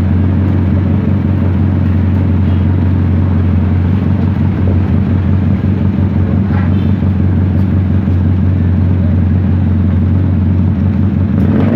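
Freshly overhauled Bajaj CT100 single-cylinder four-stroke motorcycle engine running steadily at an even idle after reassembly.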